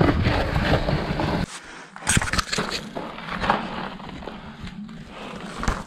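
Wind rumbling on the microphone for the first second and a half, then scattered scuffs and scrapes of boots and hands on rock during a scramble.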